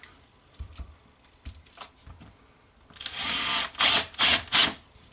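Light clicks of handling, then about three seconds in a Würth power screwdriver drives a screw through the turntable bearing plate into an oak board: a half-second run followed by three short bursts as the screw is snugged down.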